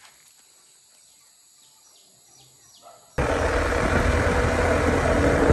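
A few faint, high bird chirps over quiet outdoor background. About three seconds in, the sound cuts abruptly to a motorcycle under way: steady engine rumble and heavy wind rushing over the microphone.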